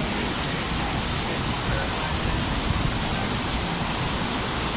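Steady rushing of water from a FlowRider wave simulator, its pumped sheet of water pouring up and over the ride surface.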